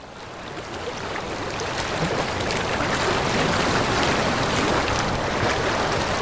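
Steady rushing ambient noise fading in over the first two seconds, with faint scattered clicks.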